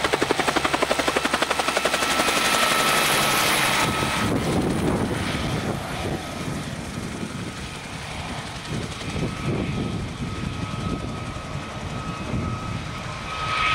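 Bell 47 helicopter's two-bladed main rotor and piston engine at takeoff power as it lifts off and flies overhead. The loud, rhythmic rotor beat lasts the first few seconds, then the sound grows quieter as the helicopter climbs away.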